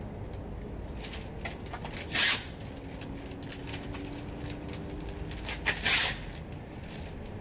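Two short, scratchy hissing strokes about four seconds apart: a hand sanding block with sandpaper rubbed over the BMW 3 Series' painted door panel, over a steady low outdoor rumble.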